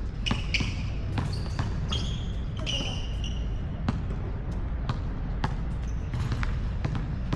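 A basketball bouncing on an outdoor court: a string of sharp bounces, some in quick runs, with short high squeaks between them near the start and around the middle. A steady low rumble runs underneath.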